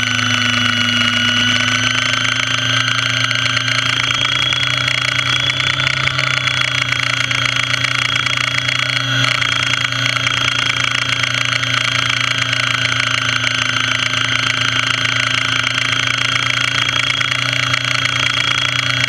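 Radio-controlled model helicopter's motor and rotor heard from on board in flight: a steady low hum with a high whine over it, holding nearly the same pitch throughout.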